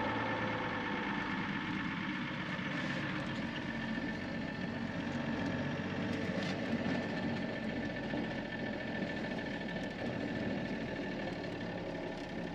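Unimog truck's diesel engine running steadily as it drives slowly along a gravel track, heard from inside the cab.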